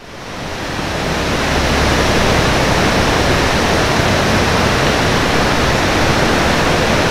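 River water rushing over a low weir and rocky rapids: a steady, loud rush that fades in over about the first second and a half.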